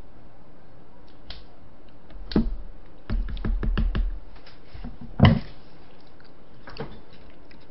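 Kitchen scissors snipping octopus in a bowl of noodle soup: a few scattered snips, a quick run of about six snips in the middle, then one louder clack.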